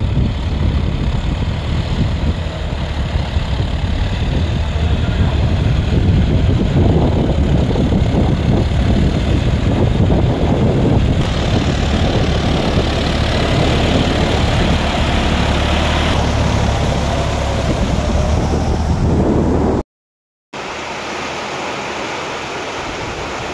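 John Deere 5310 tractor's three-cylinder diesel engine running steadily under load as the tractor churns through a flooded paddy field, with water splashing around the wheels. After a break about 20 seconds in, steady rain falls on the fields.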